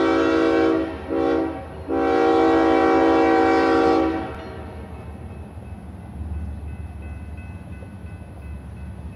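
Diesel locomotive air horn sounding the end of a grade-crossing signal: a long blast that ends just under a second in, a short blast, then a final long blast that stops about four seconds in. After it, the low rumble of the approaching train.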